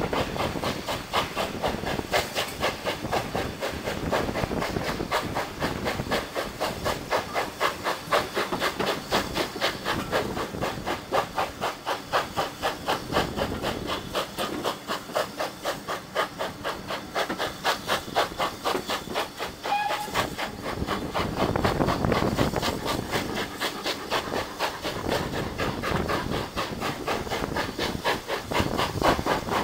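GWR 0-6-0 pannier tank steam locomotive working a train, its exhaust going in a quick, even chuff with steam hiss, heard from a coach further back in the train.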